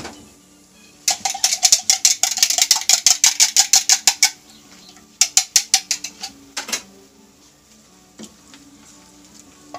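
A fork beating a raw egg in a glass measuring cup, clicking fast against the glass at about eight strokes a second for about three seconds. A second, shorter burst of beating follows, then a single tap.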